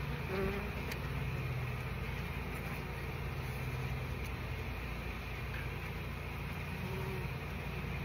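Honey bees buzzing in a steady drone from a colony whose trash-can hive has tipped over and whose comb is being cut loose. A single bee's higher buzz passes close about half a second in and again near the end.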